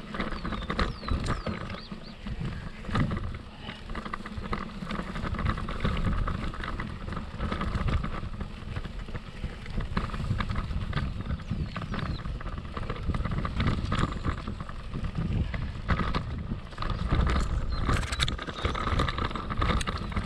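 Scott mountain bike rolling over a rough grassy trail, heard from a frame-mounted camera: a continuous low rumble of tyres and air over the microphone, with frequent clicks and rattles from the chain and frame as it bumps along, a little louder over the last few seconds.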